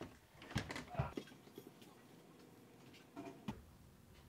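Hard plastic cover panel being handled and set onto a car's front end: a few light knocks and clicks about half a second to a second in, and two more just after three seconds.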